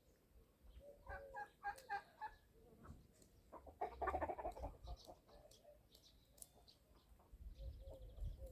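Chickens clucking: a quick run of about five clucks, then a louder, drawn-out cluck about four seconds in.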